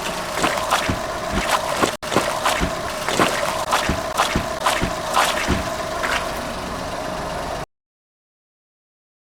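Car engine running at low speed while a tyre rolls over water balloons, giving a quick run of sharp pops and cracks, two or three a second. The sound cuts off abruptly about two-thirds of the way through, leaving dead silence.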